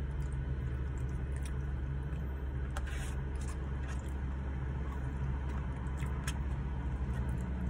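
Steady low hum of a car idling, heard inside the cabin, with a few short clicks and scrapes of a plastic fork in a paper fry tray and of chewing, the loudest about three seconds in.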